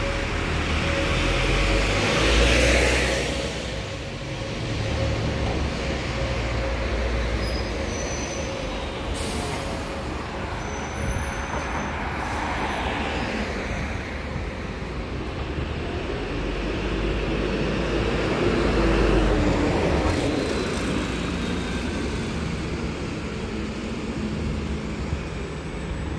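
Double-deck London buses (Alexander Dennis Enviro400 MMC) at a kerbside stop, their engines running over road rumble. A loud hiss of air about two seconds in, then later a swell of engine sound with a rising note as a bus pulls away.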